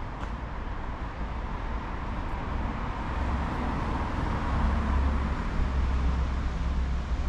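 Street traffic noise with a low rumble that swells in the second half and eases off near the end, as a motor vehicle passes close by.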